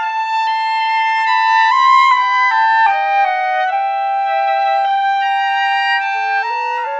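Instrumental music: a slow melody of held notes stepping from one pitch to the next, with a second part moving alongside it.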